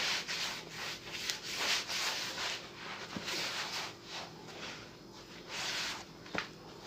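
Hands kneading and gathering a soft, slightly sticky yeast dough in a bowl: a run of irregular rubbing swishes, several a second.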